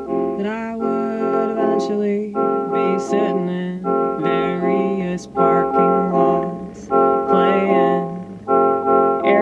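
Keyboard music: sustained organ-like chords struck again about every second and a half, with a wavering, sliding lead melody over them.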